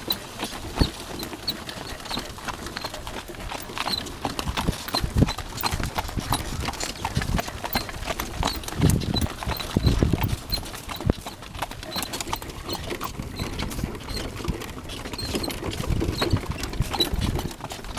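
A cart horse's hooves clip-clopping steadily on a packed dirt road, with heavier low bumps around the middle.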